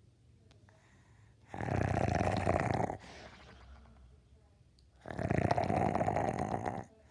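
Dog snoring: two long snores about three and a half seconds apart, each lasting about a second and a half, with a soft, faint breath out between them.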